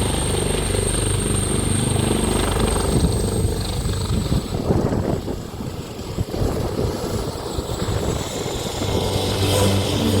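AgustaWestland AW139 helicopter in flight, heard from the cabin. Its twin turboshaft engines and rotor make a steady low drone, with a thin high turbine whistle that sinks slightly in pitch over the first few seconds. Through the middle the low drone turns choppy and uneven for a few seconds.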